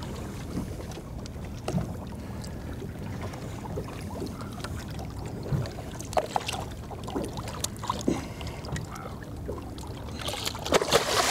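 Water lapping and splashing against the hull of a small fishing boat as a large ray is held at the surface beside it, with scattered short splashes and knocks. The splashing grows louder and busier about ten seconds in.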